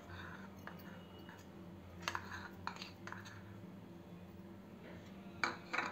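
Spoon and bowls clinking lightly a few times while custard powder is mixed into cold milk and the bowl is tipped out, over a faint steady low hum.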